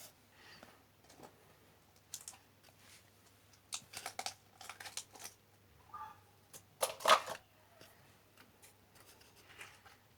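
Slime being mixed and squished, giving irregular sticky crackles and small pops, with a louder burst of crackling about seven seconds in.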